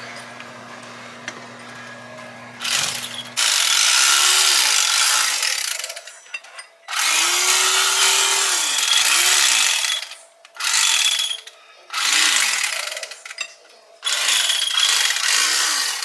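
Electric carving knife slicing turkey, run in a series of bursts a few seconds long, its motor pitch rising as each burst starts and falling as it stops. A low steady hum comes before the first burst, about three seconds in.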